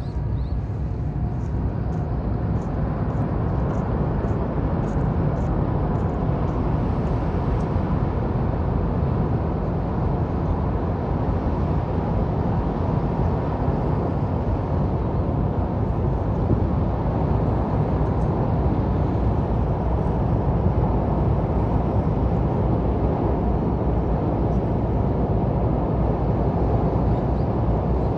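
Steady low rumble and rushing noise aboard a car ferry under way as it comes into port, with a faint steady high tone running through it.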